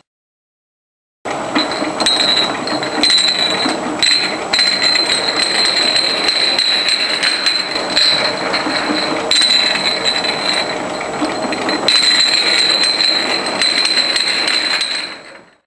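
A double-wheel bottle spacer runs on a bottle conveyor, starting about a second in. A steady high whine sounds under a dense, irregular clatter of glass bottles clinking and knocking as the wheels space them out.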